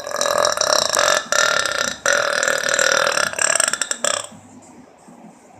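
Two long, loud human burps, one right after the other, each lasting about two seconds. They stop about four seconds in.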